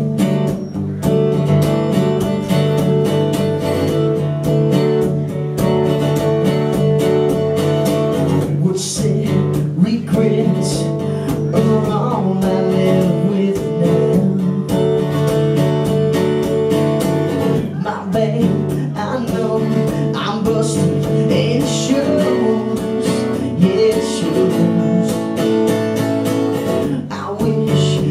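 Acoustic guitar strummed steadily in a live solo performance.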